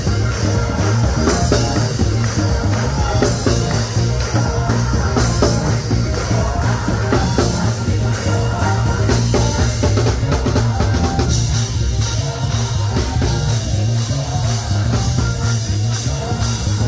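Live gospel church music, with a drum kit playing steadily over a strong low bass line.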